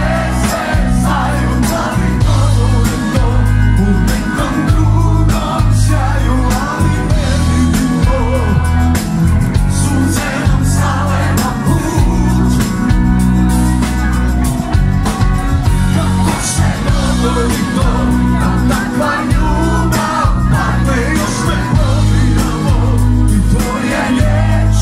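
Live band music played loudly through a concert sound system, with strong bass and drums, and a male singer's voice in places.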